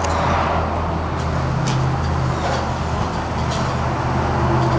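An engine idling steadily, its low hum shifting slightly in pitch about a second in, with a few light crunches like footsteps on gravel.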